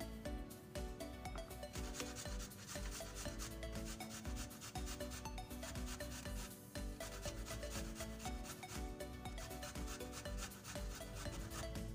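Fresh ginger root rasped in repeated strokes against a stainless steel box grater, under background music.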